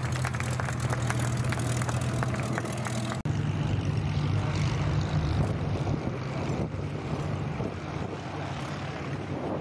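Supermarine Spitfire's Rolls-Royce Merlin V12 engine running at low power with a rapid crackle as the fighter rolls out after landing. About three seconds in, the sound cuts to another Spitfire's engine droning steadily on its landing approach.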